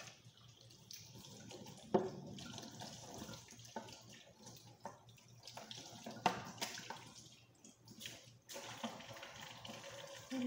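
Water running from a kitchen tap into a sink while dishes are washed, with a few sharp clinks, the loudest about two seconds in and again about six seconds in.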